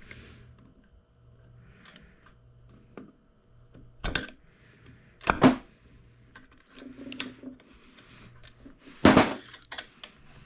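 Hand tools clicking and tapping on small metal engine parts, with a few sharp metallic knocks, the loudest about five and nine seconds in.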